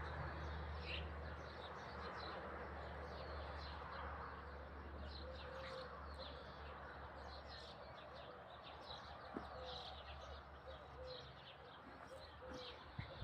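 Small songbirds chirping and twittering throughout, with a dove's low cooing notes coming in now and then. A faint steady low rumble lies underneath.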